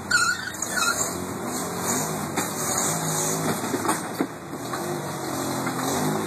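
Off-road vehicle's engine running at low revs as it crawls over rocks, with a couple of short squeaks in the first second.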